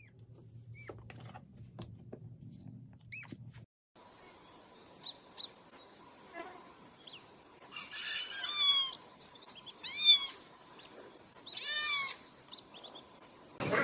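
Ducklings peeping: scattered short, high peeps, building to three louder runs of rapid peeps about two seconds apart in the second half. The first few seconds hold only a faint low hum with a couple of faint chirps.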